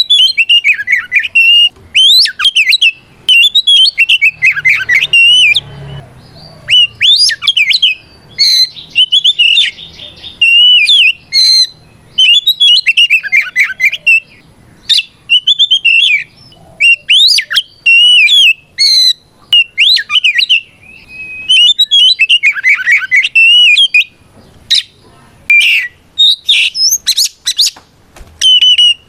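Oriental magpie-robin (kacer) singing loudly in rapid, varied phrases of gliding whistles and chirps, broken by short pauses. This is the open, full-voiced challenge song that calls out a rival male.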